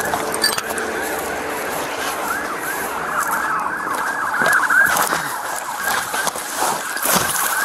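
Police sirens, several overlapping, sweeping up and down in pitch over and over. The rustle and knocks of a body-worn camera on a moving officer run underneath.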